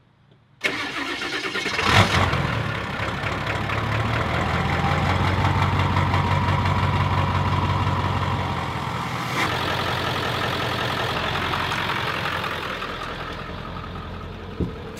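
Ford pickup truck's engine cranking and starting, catching with a loud burst about two seconds in, then idling steadily. A faint whine rises and then levels off over the next several seconds.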